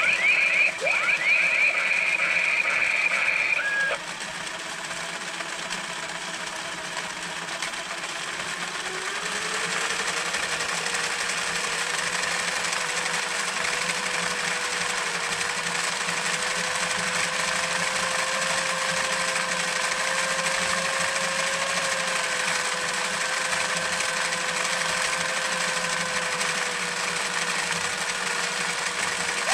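Toy chainsaw's small electric motor and plastic chain drive running overvolted from a bench power supply at about 12 volts: a steady buzzing whine with gear rattle, rising in pitch about nine seconds in as the motor speeds up, then winding down at the very end. A loud high warbling tone sounds over it for the first four seconds.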